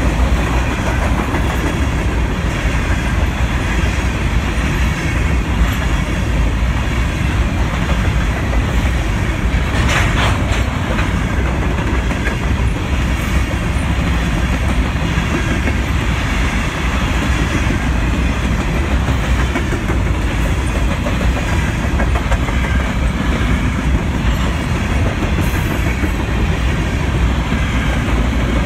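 Freight train of covered hopper cars rolling past at close range, steel wheels clattering over the rail joints in a steady, continuous stream. A brief sharper screech cuts through about ten seconds in.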